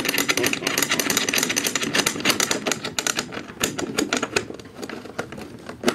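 Rapid, dense clicking and tapping of hands working at a tom-tom drum's metal rim and tension rods, tightening the rods by hand before tuning with a key. The clicks thin out a little after about four seconds.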